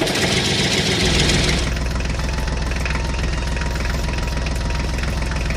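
An engine starts with a brief rushing noise and settles into a steady, fast idle.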